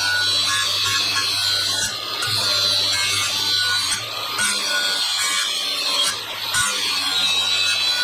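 Angle grinder with a flap disc grinding the edge of a clamped steel blade for a light sharpening: a steady grinding hiss over the motor's hum. The hiss eases off briefly about every two seconds as the disc is worked along the edge in passes.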